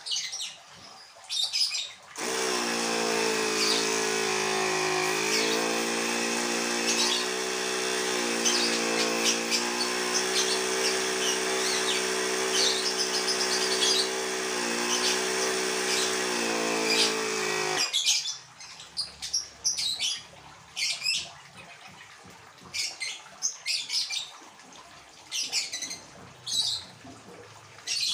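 Mini car tyre-inflator air compressor switched on about two seconds in, running with a steady motor hum and rush of air while driving an airbrush. It dips slightly in pitch a couple of times and cuts off after about sixteen seconds. Birds chirp before and after it.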